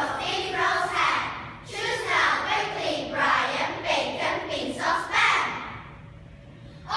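Choral speaking: a children's choir reciting a poem in unison, many young voices speaking together in short phrases. The voices drop away near the end.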